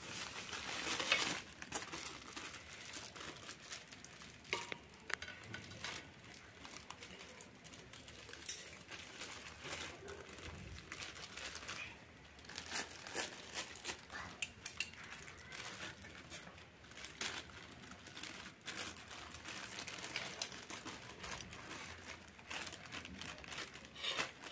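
Hands unwrapping food from thin plastic carry bags and an aluminium foil parcel: irregular crinkling and rustling.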